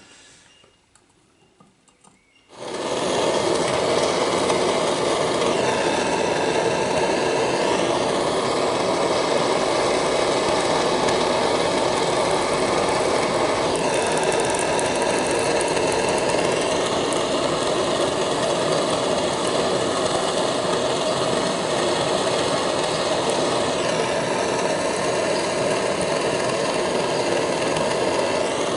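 Camping gas torch burning with a steady, loud rush. It comes on suddenly about two and a half seconds in and heats the joints for soft soldering.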